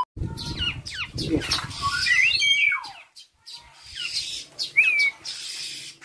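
A bird calling in short whistled and chirping notes that slide up and down in pitch, a busy run in the first three seconds and another clear sliding note about five seconds in, with a low rumble under the opening second or so.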